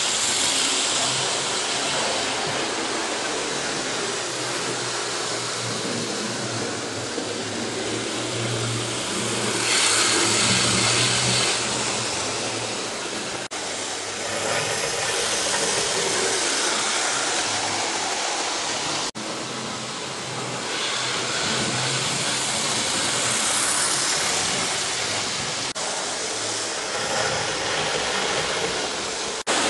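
Model railway locomotives running on the layout: a steady whirring rumble of small motors and wheels on the track, with a faint low hum. It breaks off briefly three times, at about 13, 19 and 26 seconds in.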